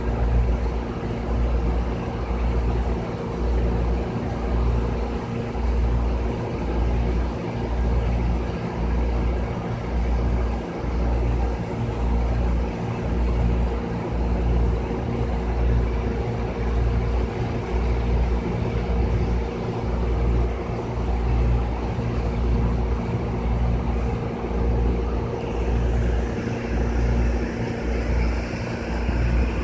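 Wind buffeting the microphone in uneven gusts over a steady engine hum from heavy machinery. A higher-pitched sound joins in near the end.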